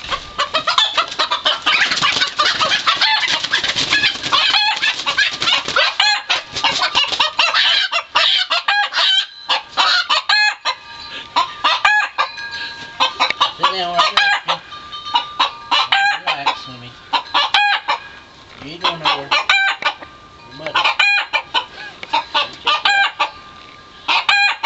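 Chickens clucking and squawking with roosters crowing again and again, the flock stirred up as birds are caught in the pen. The calls pile on top of each other at first, then come in separate bursts with short pauses between them.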